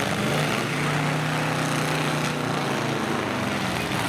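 Demolition derby pickup truck engine held at high revs, a steady drone that eases off near the end.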